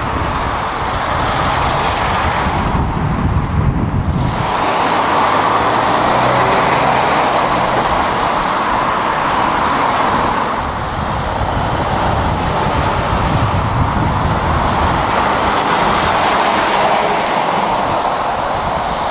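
Road traffic with lorries and cars passing: a steady mix of diesel engine and tyre noise, the sound changing about four seconds in.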